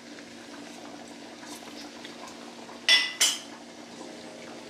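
A spoon clinks twice against the chili pot, two sharp ringing taps about a third of a second apart about three seconds in, over a faint steady low hum.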